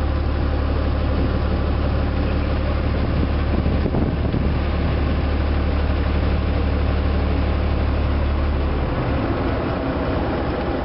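Riverboat's engine running steadily with a deep drone under a hiss of wind and water; the deep drone drops away about nine seconds in.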